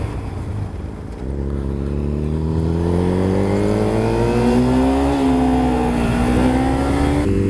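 Kawasaki Ninja 300's parallel-twin engine accelerating: its pitch climbs steadily from about a second in, dips briefly about five seconds in and climbs again, then settles abruptly into a steady note near the end.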